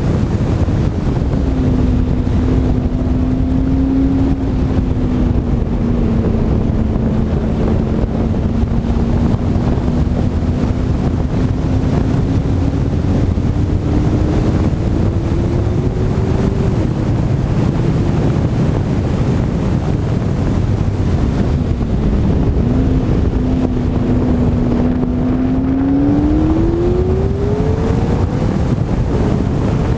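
McLaren 12C twin-turbo V8 pulling on track. Its engine note holds steady and then rises slowly, breaks off about halfway through, holds again and climbs near the end. Heavy wind and road rumble on the camera's microphone lie over it.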